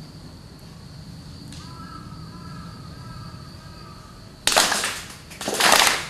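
A group of worshippers clapping their hands twice in unison, the Shinto kashiwade clap of the bow-twice, clap-twice, bow-once prayer. Each clap is a short, slightly ragged burst of many hands striking at once, about a second apart, near the end.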